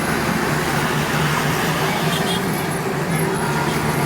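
Steady din of motor-vehicle engine noise, with no clear breaks or impacts.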